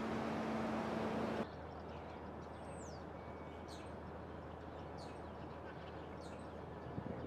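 Steady outdoor noise with a low steady hum cuts off abruptly about a second and a half in. It leaves a quieter background rumble with short, high bird chirps about once a second, one of them a quick falling note.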